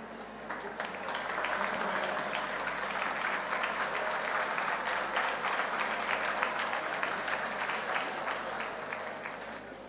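Audience applauding, swelling up over the first second or so and dying away near the end.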